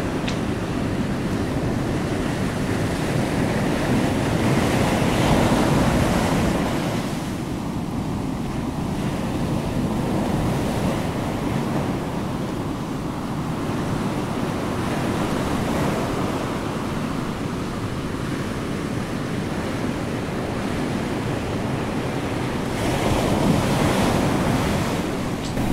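Steady rushing of ocean surf, swelling up about five seconds in and again near the end.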